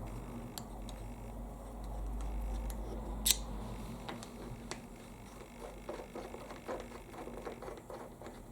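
Small clicks and ticks of tire-plug repair tools being handled, with one sharp click a little after three seconds in. A low hum fades out about four seconds in.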